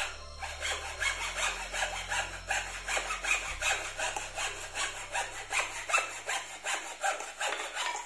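Hand hacksaw cutting through a thin wooden batten in quick back-and-forth strokes, about three a second, then stopping abruptly near the end.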